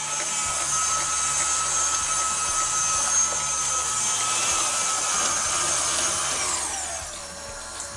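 KitchenAid Artisan stand mixer's motor running with the slicer/shredder attachment, shredding cabbage, with a steady whine. Near the end the whine drops in pitch and quietens as the motor slows.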